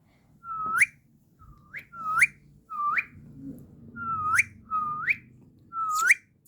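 Ringneck parrot giving about seven short, loud whistled calls in quick succession, each a held note that sweeps sharply upward at the end. The repeated calls come from an angry, put-out parrot.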